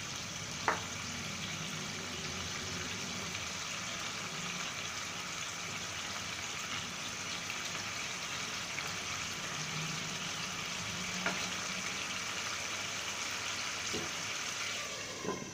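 Beef liver curry simmering in a nonstick pan, the thin gravy bubbling steadily while a wooden spatula stirs through it, with a few light knocks of the spatula against the pan.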